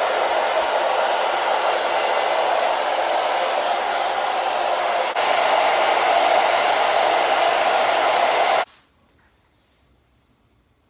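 Handheld hair dryer blowing steadily. It gives a brief catch about five seconds in and is switched off abruptly near the end.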